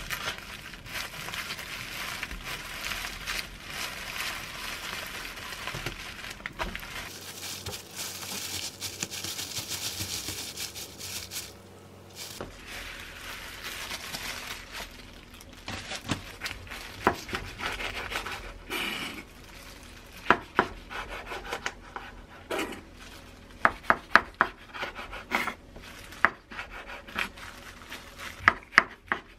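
Hands in thin plastic gloves rolling a seaweed-wrapped kimbap in a bamboo mat: a steady rustling and crinkling of plastic and bamboo slats. In the last third a knife slices through the roll, with a string of sharp knocks as the blade meets the wooden cutting board.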